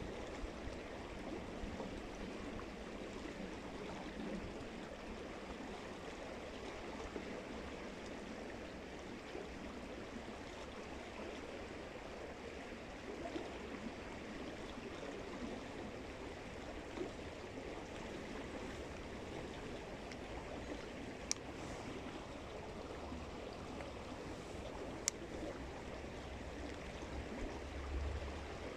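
Steady rush of flowing water, with two sharp clicks a few seconds apart past the middle.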